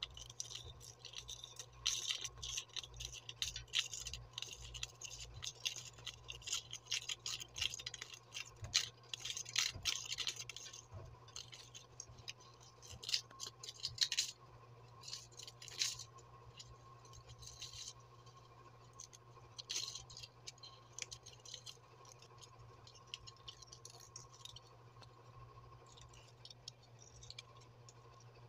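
Fingers scratching and picking at a burnt subwoofer voice coil, working loose its old magnet-wire winding. Irregular bursts of scratching that come thick for the first half and thin out after about sixteen seconds, over a faint steady hum.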